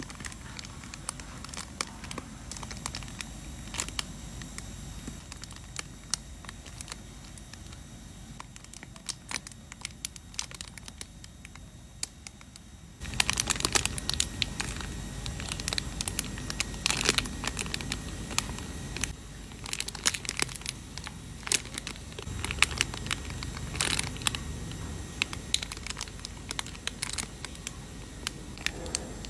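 Crinkling, rustling and tearing of plastic packaging being handled, full of small crackles and clicks; it gets suddenly louder about halfway through.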